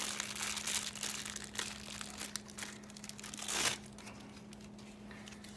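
Packaging wrapping crinkling and tearing as it is pulled off a watch by hand, dense for the first few seconds and then dying away.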